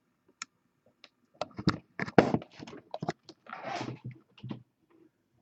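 Irregular clicking and tapping of a computer mouse and keyboard as a list is selected and copied, with a short rustling scrape about three and a half seconds in.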